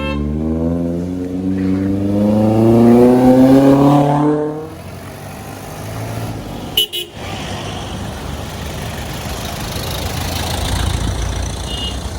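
Off-road 4x4 engine revving, rising steadily in pitch for about four seconds, then easing off to a steady run. There is a short sharp click about seven seconds in.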